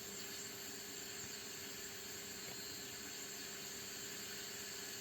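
Hiss of band noise from a homebuilt direct-conversion receiver's speaker, tuned to a quiet 40-meter band, with a faint steady low tone running under it.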